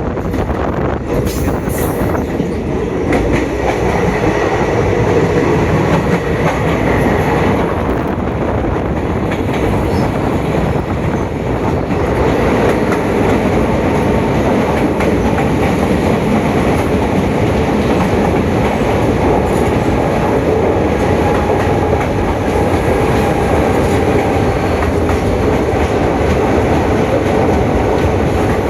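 Moving passenger train running on the track: a steady rumble with wheels clattering over the rails.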